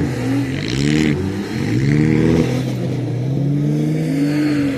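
Demolition derby cars' engines revving hard, rising and falling in pitch again and again as they drive and manoeuvre, with a short burst of hiss about a second in.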